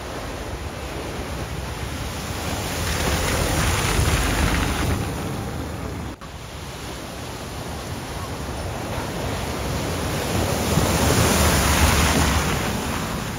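Vehicles driving through a flooded ford, their wheels throwing up a rush of splashing water that swells and fades twice. The sound breaks off abruptly about six seconds in, between the two passes.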